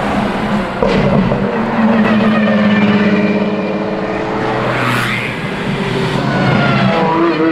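Apollo Project EVO's V12 accelerating hard up a road, its pitch climbing as it comes toward the listener and sweeping past with a rush about five seconds in. Near the end, engine pitch climbs again as another hard acceleration starts.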